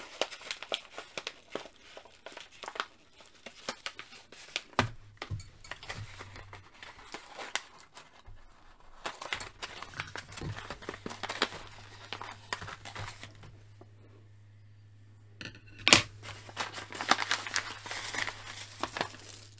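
A brown paper bag being opened and rummaged through, the paper rustling and crinkling, with many sharp clicks and taps from the small bagged plastic parts inside. There is a brief lull about three-quarters of the way through, then a loud click and more rustling.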